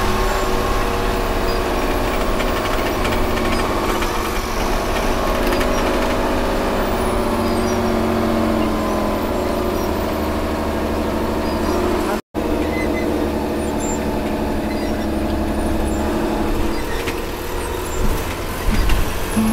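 MSRTC bus engine running steadily with road noise while under way. The sound cuts out for an instant about two-thirds through, and a few knocks come near the end.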